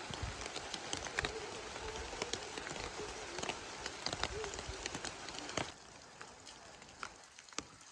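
Steady rain falling, a hiss with a dense patter of individual drops tapping on hard surfaces. A little past halfway it becomes quieter, with fewer drops.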